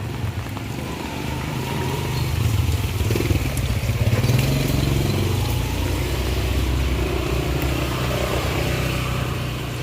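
Motorbike engine running close by, growing louder over the first few seconds and then slowly fading as it passes.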